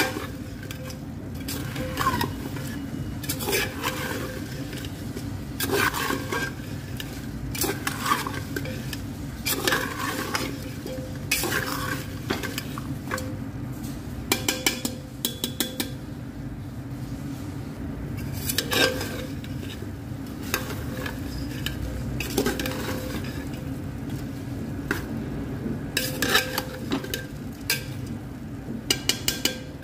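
A metal spoon stirring chunks of raw mutton and whole spices in an aluminium pot, scraping and clinking against the pot's sides again and again at an uneven pace, over a steady low hum.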